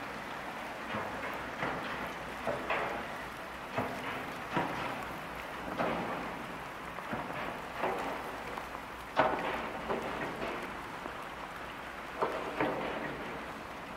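Broken plate ice crunching and cracking against the steel hull of the thousand-foot laker Paul R. Tregurtha as it pushes through the iced-over ship canal: a steady rushing hiss broken by irregular sharp cracks, the loudest about nine seconds in.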